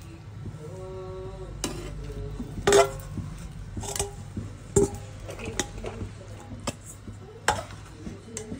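Metal serving spoon scraping and clinking against a hammered aluminium biryani pot and a steel plate as cooked rice is dug out and served, with several sharp metallic knocks spread through.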